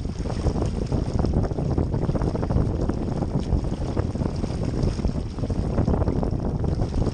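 Wind buffeting the microphone over water rushing along the hull of a Laser Vago sailing dinghy under way: a steady, gusty rumble with no single event standing out.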